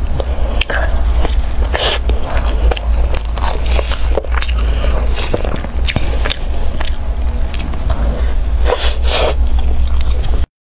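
Close-miked eating sounds: biting into and chewing a soft cream-filled pastry, with sharp wet mouth clicks and crackles of the crust, over a steady low hum. The sound cuts out abruptly just before the end.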